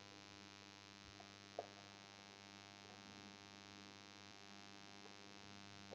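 Near silence: a low, steady electrical hum in the recording, with one faint short blip about a second and a half in.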